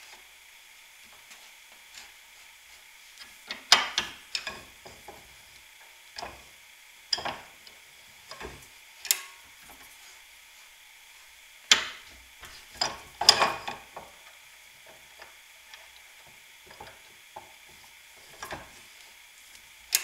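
Scattered metallic clicks, taps and scrapes of a copper ring terminal on heavy battery cable being handled and set into the steel jaws of a bench vise for crimping. The louder knocks come about four seconds in and again around twelve to thirteen seconds in.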